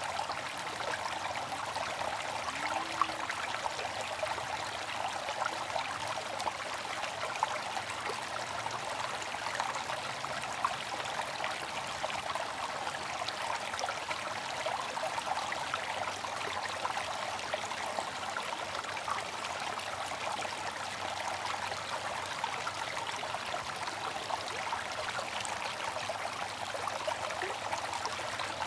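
Bamboo water fountain trickling and splashing steadily, with small drips now and then.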